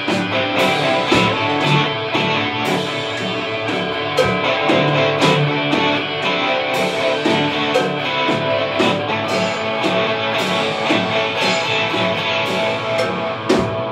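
Instrumental rock played live by two electric guitars and a Gretsch drum kit. Sustained guitar notes and chords run over the drums, with cymbal hits throughout.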